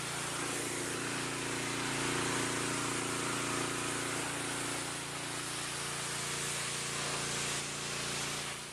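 Pressure washer's engine running steadily, a constant hum under a broad hiss, then cutting away suddenly at the very end.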